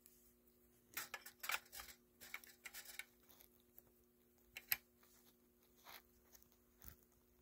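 Small hand-handling noises: a quick run of clicks and scrapes about a second in, then a few single clicks, over a faint steady hum.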